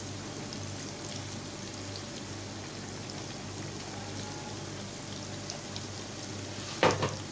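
Potato cheese sticks frying in hot oil in a pan: a steady crackling sizzle. A brief louder noise comes near the end.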